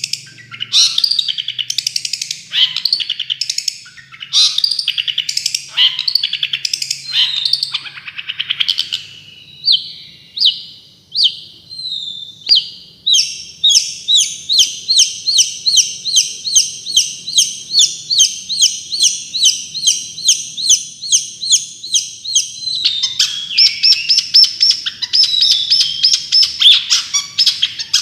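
Recorded songbird song played as masteran (tutoring) material for long-tailed shrikes: quick, varied chirping phrases, then from about halfway a long even run of sharp repeated notes, about three a second, turning into a busier, faster string of notes near the end.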